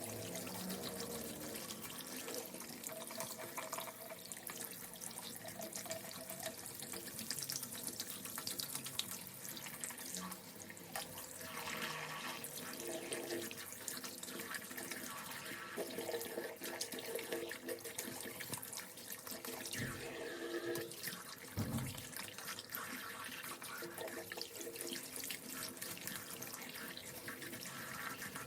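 Water running from a tap into a sink.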